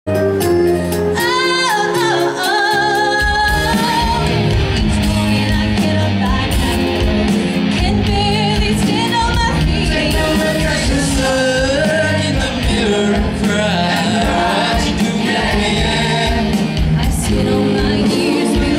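A show choir singing live through microphones: a female lead voice with vibrato over the ensemble, backed by a band whose full beat comes in about three seconds in.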